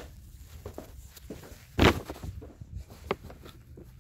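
Boxed firework cakes being handled and set down: scattered light knocks and rustles, with one heavy thud about two seconds in.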